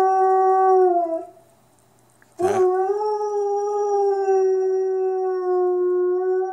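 Wolfdog howling: a long, steady howl drops in pitch and ends about a second in, then after a short pause a second howl starts sharply, rises briefly and is held steady through the rest.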